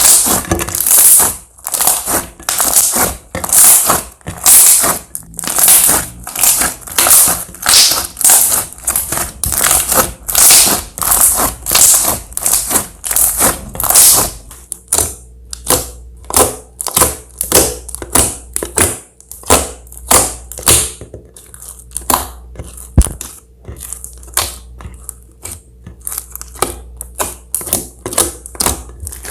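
Slime being squeezed and kneaded by hand, in rhythmic squishes about twice a second. About halfway through, the sound changes to shorter, sharper crackles.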